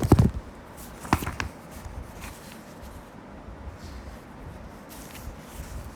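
A few soft knocks and light rustling, one near the start and another about a second in, over faint steady room noise.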